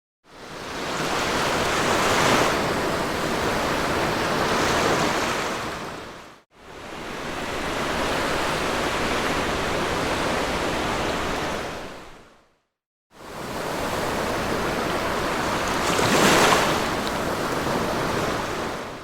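Sea waves breaking and washing on a beach, a steady rushing surf with a louder breaker about two seconds in and another near the end. The sound drops out to brief complete silences twice, about six seconds apart.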